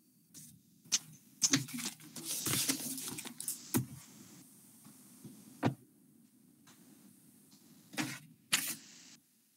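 Handling noise coming through an open microphone on a video call: several sharp knocks and clicks, with a rattling, jangling stretch in the first few seconds, over a faint low hum.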